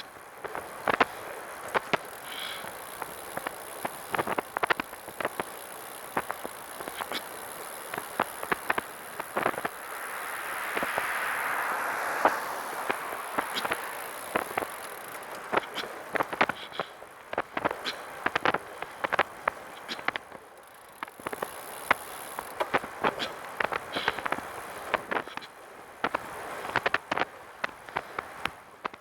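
Catrike 700 recumbent trike being ridden, with a rapid, irregular rattle of sharp clicks from the rear of the trike, the random noise behind the rider's head whose cause is unknown. A broad rushing sound swells and fades in the middle.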